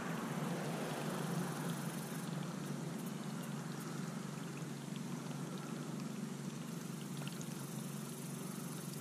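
Lake water lapping steadily at the shore, a continuous trickling wash.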